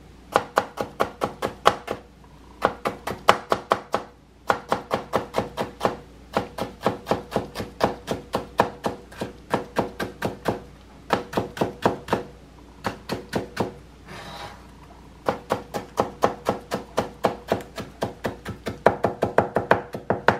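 Chef's knife slicing a peeled cucumber into thin julienne strips on a cutting board: quick, even knocks of the blade on the board, about four or five a second, in runs broken by a few short pauses.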